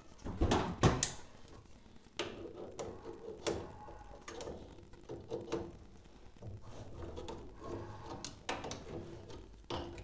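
Clicks and clunks of pliers and the old boiler circulation pump being worked loose from its union fittings over a plastic tub, the two loudest knocks about half a second to a second in, then smaller ones every second or so.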